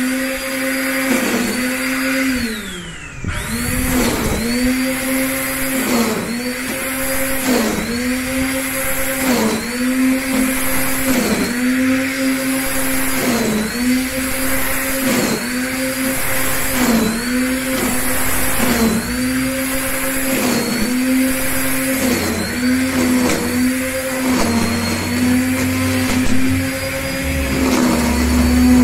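Black & Decker GrassHog corded electric string trimmer running with a steady high whine, its pitch dipping about every second and a half as the spinning line bites into grass on each sweep. About three seconds in the motor briefly slows right down and then spins back up to speed.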